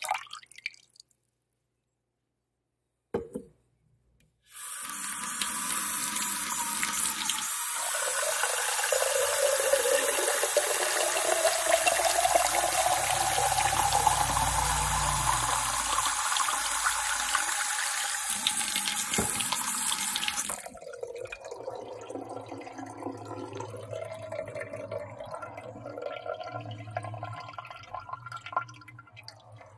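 Kitchen tap water running hard for about sixteen seconds, with a tone rising through the middle of the pour. It then drops to a light trickle and dripping. A single click comes just before the water starts.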